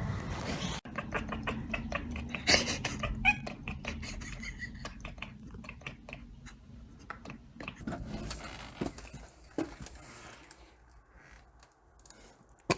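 A cat meowing a few times amid a run of quick clicks and taps.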